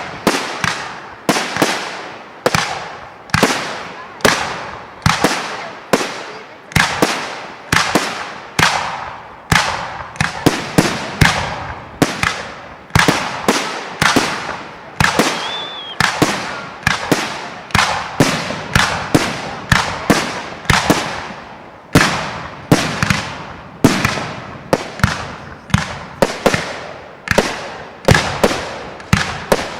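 Fireworks display: aerial shells bursting in a rapid, continuous barrage of sharp bangs, about one to two a second, each trailing off.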